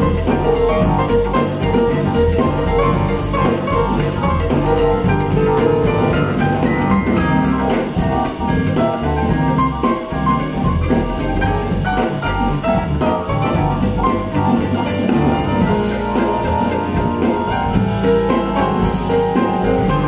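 Jazz with piano and drum kit played through a pair of KEF LS50 Black Edition bookshelf speakers.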